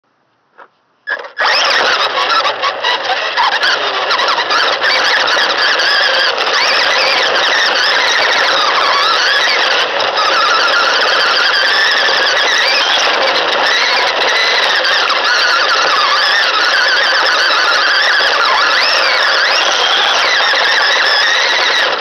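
Small electric motor and gear drivetrain of a LaTrax Teton 4x4 RC truck whining loudly as it drives, the pitch rising and falling with the throttle, heard up close from a camera mounted on the truck. Tyres run over gravel, dirt and grass under it. The sound starts about a second in.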